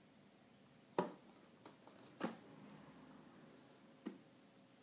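A few sharp clicks and knocks from handling a small die-cast model airliner and its box on a table: a loud one about a second in, another a little over a second later, and a softer one near the end, with faint ticks between.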